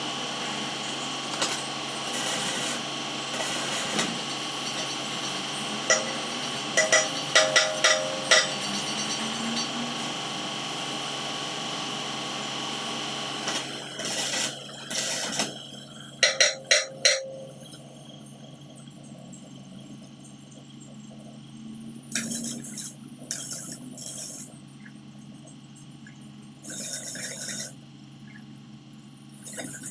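Hand-tool work on steel: clusters of sharp taps and scraping, over a steady machine hum that drops away about halfway through, followed by a few short bursts of scraping.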